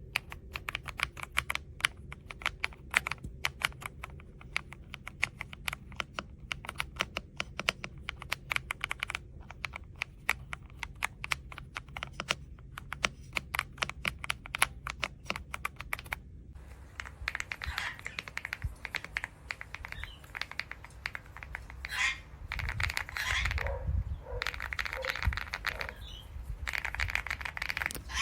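Typing on an AULA S98 Pro mechanical keyboard: rapid, continuous key clicks for about the first sixteen seconds. After that the pattern turns noisier and less even, with scattered clicks and a few low thumps.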